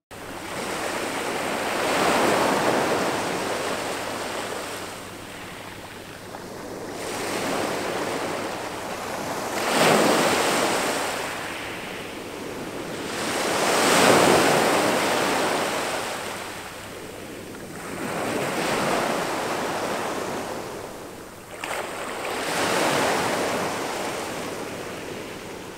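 Small sea waves breaking and washing up over a pebble beach, the surf swelling and falling back every four to five seconds.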